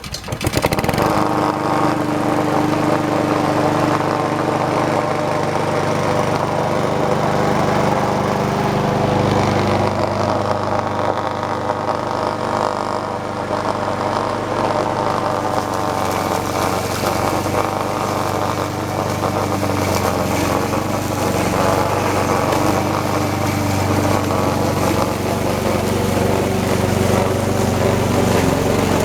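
Troy-Bilt 21-inch walk-behind lawn mower engine starting and then running steadily at full throttle while mowing tall grass. Its note drops slightly about nine seconds in.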